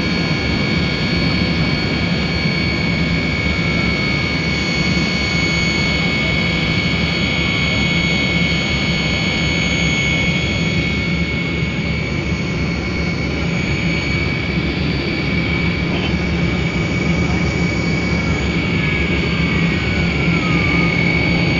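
Tu-154 airliner's rear-mounted jet engines at climb power just after takeoff, heard inside the passenger cabin: a steady drone with a constant high whine over a low hum.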